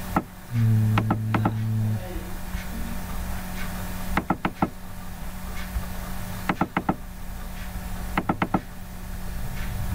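Computer mouse clicking in quick sets of about four, like double-clicks, three times, with a few more clicks near the start. A steady low electrical hum runs underneath, and a louder low buzz sounds for about a second and a half near the start.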